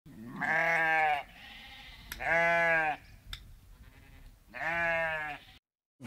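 A sheep bleating three times. Each call is an even, drawn-out baa just under a second long, and the calls come about two seconds apart.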